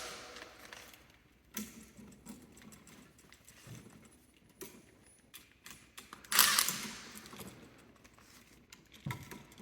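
Wires and tools being handled in a wall switch box: scattered small clicks and rustles, with one louder scraping rustle about six seconds in.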